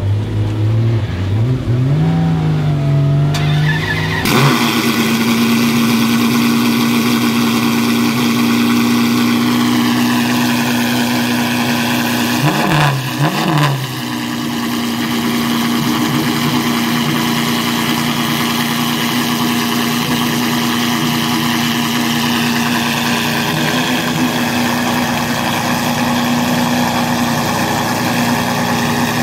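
Maserati MC12 Corsa's 6.0-litre V12 race engine firing up about four seconds in, then running at a steady, loud high idle. Its revs dip briefly twice about halfway.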